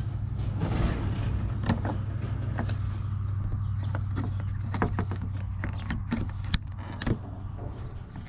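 Scattered clicks and knocks of hand work on plastic car parts, working an old side marker reflector loose from a bumper, over a steady low hum.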